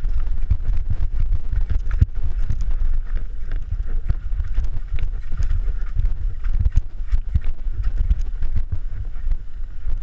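Mountain bike rattling and clattering down a rocky, rooty trail: rapid irregular knocks from the tyres, suspension and chain hitting rocks, over a steady low rumble of wind on the microphone.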